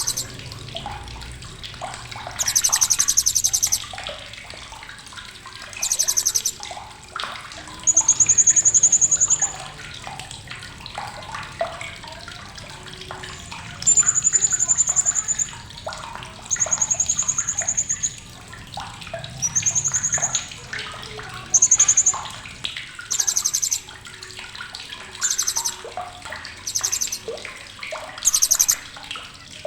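Hanging parrot (srindit) giving sharp, high-pitched calls in about a dozen short phrases: some rapid chattering trills, others a single drawn-out shrill note, with brief pauses between.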